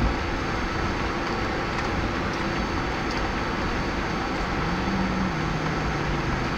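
Steady cockpit noise in a Boeing 767 on the ground, from the engines and air conditioning: an even rushing hiss with a steady hum under it. A lower hum joins about five seconds in.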